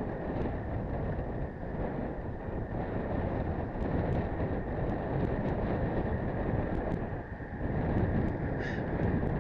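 Steady wind noise buffeting the microphone of an action camera on a moving road bicycle, with scattered small high ticks and a brief high squeak near the end.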